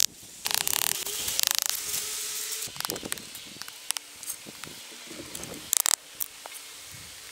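Short bursts of rustling and scraping from wooden sticks and dry brush being handled, with a few sharp knocks and clicks between them.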